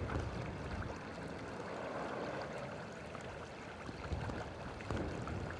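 Water gushing and bubbling up out of the ground from a broken water main, a steady churning rush.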